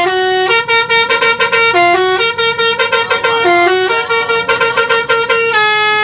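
Bus 'telolet' multi-tone air horn playing a fast melody, a held note at the start, then a run of short choppy notes, and another held note near the end.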